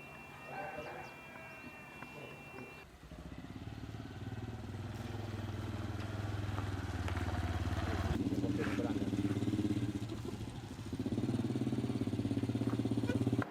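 A small vehicle engine running steadily close by, starting about three seconds in, getting louder, and cutting off abruptly at the end.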